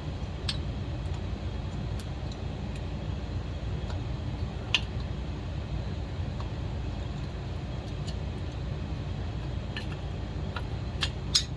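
Scattered metal clicks and clinks of hand tools working the cylinder nuts on a vintage Pioneer chainsaw, over a steady low hum. The sharpest clicks come about five seconds in and twice near the end.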